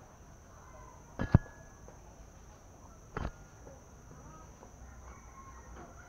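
Two sharp clicks, about a second and about three seconds in, the first the louder, over a faint background with a steady high-pitched insect-like whine.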